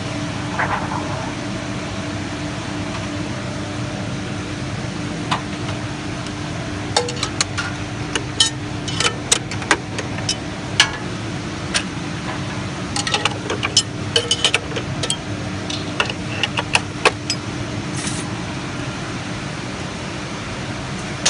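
Heidelberg Printmaster PM 74 offset press humming steadily during a plate change. Through the middle stretch there is a run of sharp metallic clicks and taps as a hand tool works the plate clamp bar on the plate cylinder.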